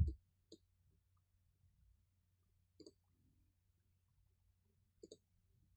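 Computer mouse clicking: a few quiet, short clicks, including two quick double clicks a couple of seconds apart. A dull thump comes right at the start, and a faint steady hum runs underneath.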